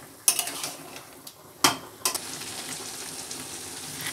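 Chicken frying in onion, ginger and garlic masala in a metal kadhai, sizzling steadily as it is cooked down. A metal spatula stirs it with a few sharp knocks and scrapes against the pan in the first two seconds.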